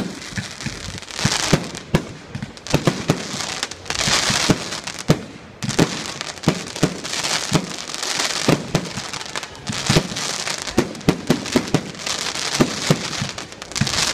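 Aerial fireworks: shells bursting with many sharp bangs in quick succession, mixed with recurring spells of crackling hiss from the glittering white stars.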